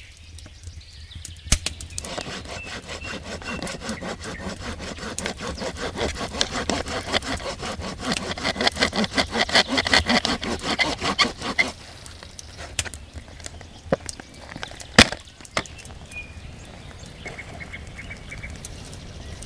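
Hand saw cutting through wood in a steady rhythm of strokes, growing louder until the cut stops about twelve seconds in. A single sharp crack follows a few seconds later.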